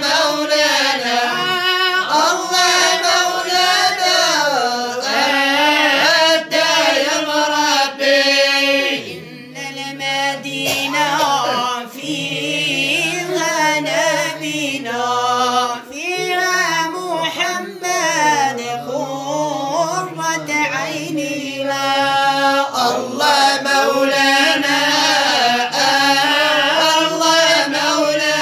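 Sung madih nabawi, Islamic praise poetry for the Prophet: a man's voice singing long, drawn-out melodic lines that slide up and down in pitch.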